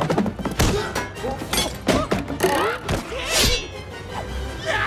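Animated-film soundtrack: lively music under a rapid run of thuds, bangs and crashes as furniture is knocked about and dragged.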